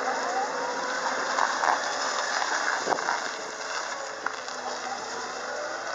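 Komatsu PW150 wheeled excavator's diesel engine running while the machine drives, with a faint whine gliding in pitch and a single knock about halfway through.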